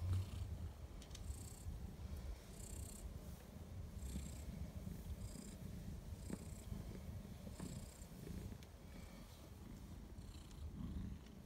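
Heavily pregnant British Shorthair cat purring steadily, a low pulsing rumble, with soft brushing of fur now and then as her belly is rubbed.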